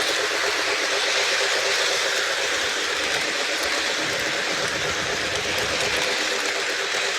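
Lionel LionChief Plus O gauge 4-6-4 Hudson model steam train running steadily on its track, a continuous even hiss and rumble of the train in motion.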